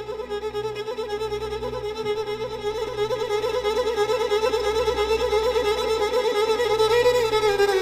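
A violin holding one long note with a slight vibrato, sliding down in pitch near the end, over a low steady hum.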